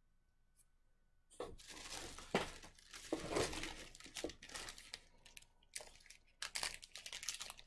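Clear plastic packaging crinkling and rustling as it is handled: the sleeve of a flat wooden puzzle and small wrapped candy packets. It comes in irregular bursts, starting about a second and a half in.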